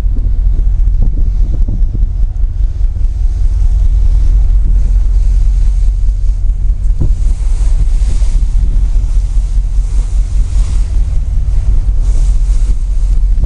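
Wind buffeting the microphone over the heavy low rumble of a tugboat at sea, with a hiss of wind and water that grows louder past the middle.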